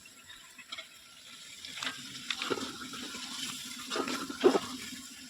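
Water splashing and sloshing, uneven, with louder splashes about halfway through and again near the end.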